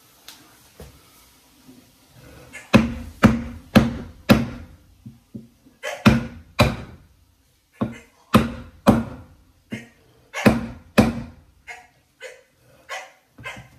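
A new drum bearing being driven into the plastic rear tub housing of a Kenmore Elite HE5t washer with blows through a wooden 4x4 post, wood on metal. The thunks come in bursts of about two a second, starting a few seconds in, and the last few are lighter as the bearing seats.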